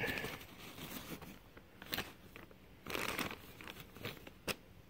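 Soft, irregular rustling and crinkling as a cap and its torn-open paper mailing envelope are handled, with a few light clicks.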